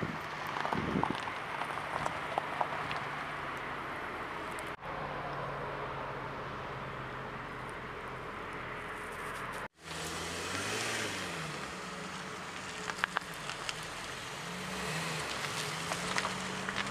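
A motor vehicle's engine running under a steady outdoor noise, its pitch rising and falling a few times in the second half. The sound cuts out briefly twice.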